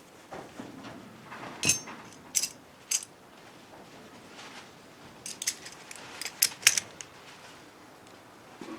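Metal tools and small engine parts clinking and tapping against each other: three sharp clinks, then a quick run of several more a few seconds later.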